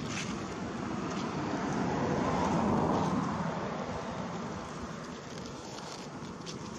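A motor vehicle passing; its noise swells to a peak about three seconds in and then fades.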